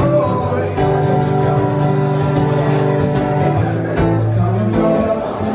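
Guitar music played live, a melody of long held notes.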